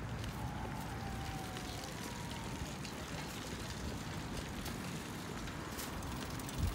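City street ambience: a steady low rumble of traffic with faint clicks, and a brief thump near the end.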